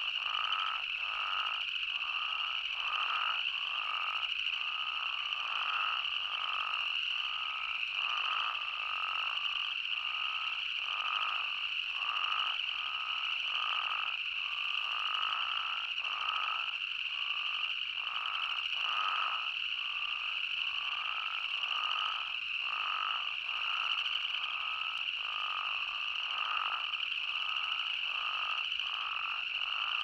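Chorus of spadefoot toads calling, many overlapping calls repeating again and again, over a steady high-pitched drone.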